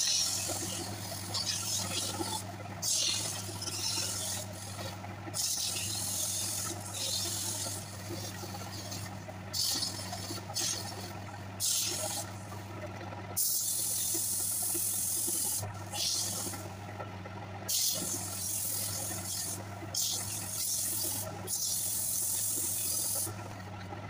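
Hand tool scraping inside the hollow of a spinning wooden workpiece on a lathe, in a dozen or so strokes of one to two seconds with short pauses between, over the lathe motor's steady hum.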